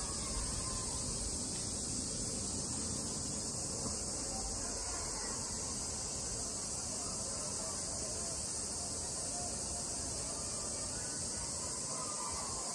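Cicadas buzzing in a steady, high, unbroken drone.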